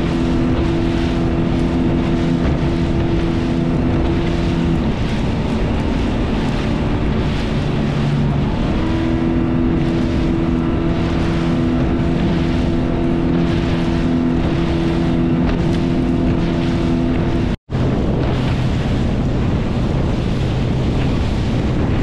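A boat's motor running steadily under way, with wind and water rushing over the microphone. The engine note shifts lower between about 5 and 9 seconds in. The sound cuts out for an instant about two-thirds of the way through, then the motor runs on at a lower pitch.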